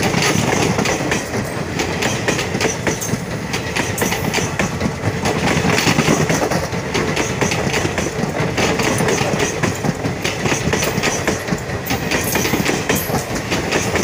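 Indian Railways passenger train passing close by, a loud steady rush with rapid clicking of the coaches' wheels over the rail joints.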